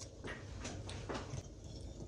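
A spoon stirring a crumbly sugar-and-cinnamon mixture in a glass bowl, with a few soft scraping strokes.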